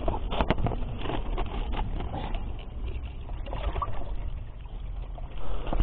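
Spring water running and splashing into a stone trough, with scattered clicks and knocks.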